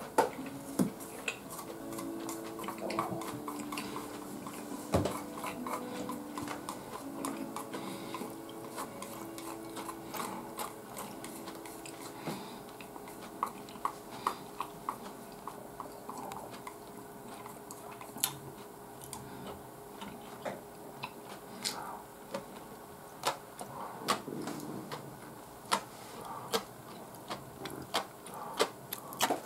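A person eating: scattered small clicks and taps of chopsticks on tableware, with chewing. A faint background tune plays through the first half.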